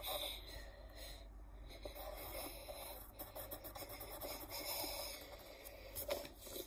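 Pencil scratching on paper in short, irregular strokes, faint and continuous, with a few louder scrapes near the end.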